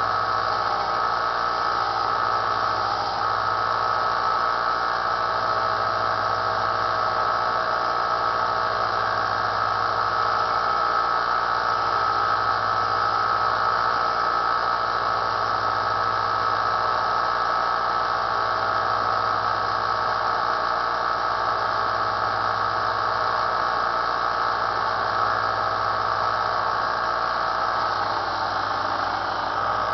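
Small benchtop belt sander running steadily under power, with a constant high-pitched whine over a low hum.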